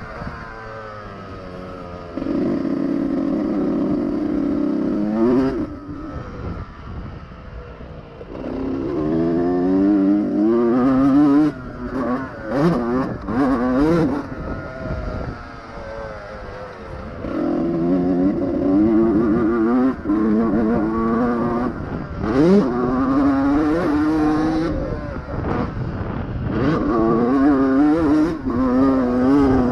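2001 Honda CR125 two-stroke single-cylinder motocross engine being ridden hard: it holds a steady pitch for a few seconds, then repeatedly climbs in pitch as it accelerates through the gears and drops away when the throttle closes.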